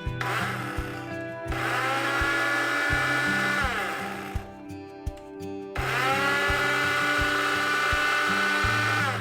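A small electric motor, like that of a blender or power tool, runs twice: each time it spins up with a rising whine, holds a steady pitch for about three seconds, then stops, the first run winding down as it ends. Background music with a steady bass line plays underneath.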